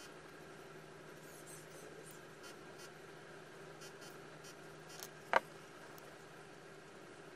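Small clicks and taps of a cordless drill's motor and gearbox parts being handled and picked at with a small metal tool, with one sharp metallic clink about five seconds in, over a steady faint hum.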